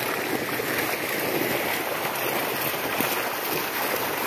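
A crowd of milkfish trapped in a hauled-in seine net thrashing and splashing in shallow water, a steady continuous churning splash.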